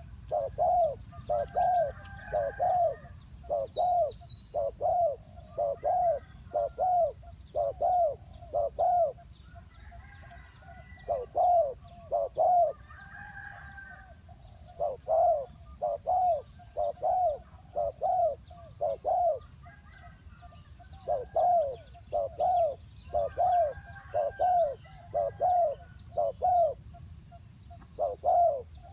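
Spotted doves cooing: phrases of several low, down-curving coos repeated over and over with short pauses between phrases, over a steady high-pitched tone.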